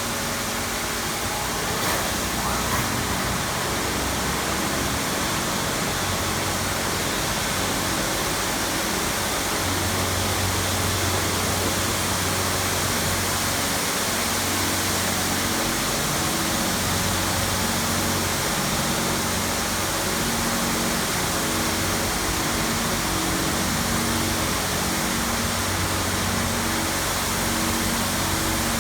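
Touchless car wash machine spraying high-pressure water: a steady hiss, with a low machine hum that comes and goes.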